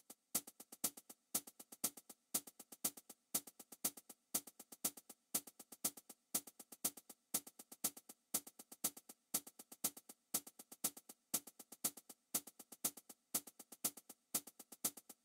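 A soft electronic tick from the background music track, repeating evenly about twice a second with silence in between, like a drum-machine click keeping time.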